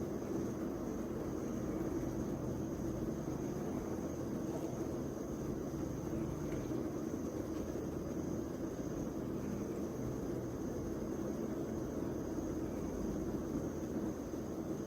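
Steady background hum and hiss with a faint high-pitched whine above it, unchanging throughout; no distinct sounds stand out.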